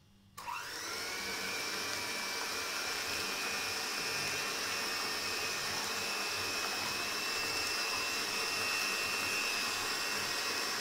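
Electric hand mixer starting up about half a second in with a brief rising whine, then running steadily with a high whine as its beaters whip cream and condensed milk in a plastic bowl.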